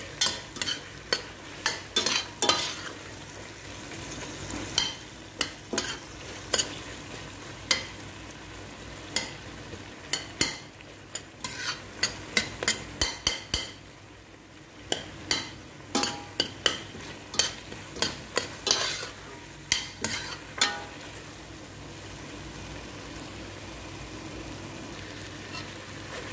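Chopped tomatoes and onion frying in curry paste in a stainless steel pot, stirred with a slotted metal spoon: a steady sizzle with frequent clinks and scrapes of metal on the pot, which thin out over the last few seconds.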